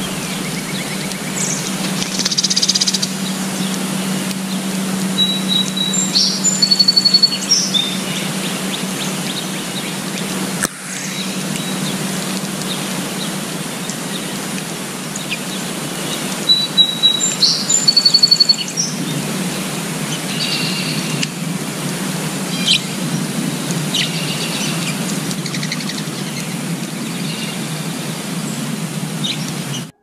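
Small songbirds chirping and calling in short bursts and brief trills, over a steady low outdoor rumble.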